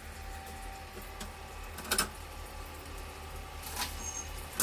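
Dishes clinking and knocking as they are set into dishwasher racks: one knock about two seconds in and another at the end, over a low steady hum.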